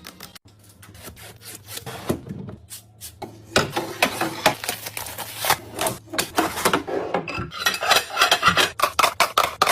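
Items being handled while restocking a mini fridge: rubbing and scraping of packaging and containers with many quick small clicks and taps, quiet at first and getting busy from about three and a half seconds in.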